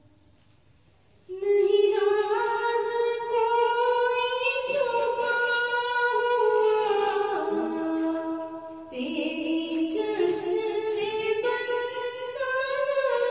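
A girl singing a hamd, an Urdu hymn in praise of God, solo and unaccompanied into a microphone, in long held notes that step and glide between pitches. The singing comes in about a second in, after a brief pause.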